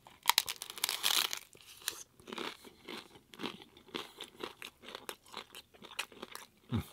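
A person biting into a crisp hard corn taco shell with a loud crunch about a second in, then chewing it with repeated crunches every half second or so.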